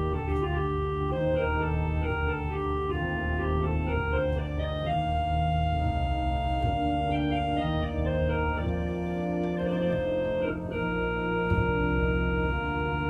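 Organ music: slow sustained chords over long held bass notes, the upper notes moving every second or so.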